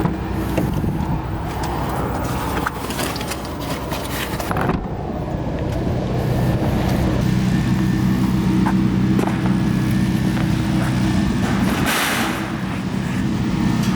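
Motors and propellers of a 5-inch FPV freestyle quadcopter in flight: a steady, continuous buzz with rushing air over it.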